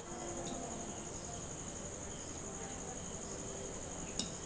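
Crickets trilling steadily in a high band over the faint sizzle of a jhuri nest frying in oil in a kadai, with one light clink of the wire skimmer about four seconds in.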